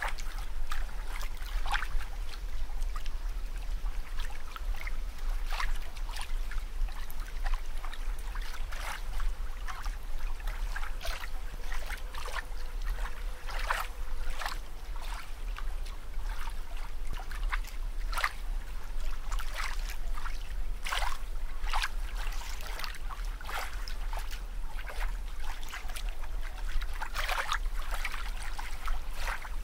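Water sound effect: a steady low rumble under irregular bubbling and gurgling pops.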